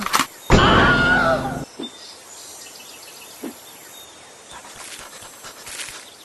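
A loud, high-pitched animal-like cry lasting about a second, starting about half a second in, its pitch wavering, followed by faint outdoor background.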